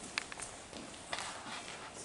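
Footsteps on a debris-strewn tiled floor: a few sharp clicks and crunches over a steady hiss.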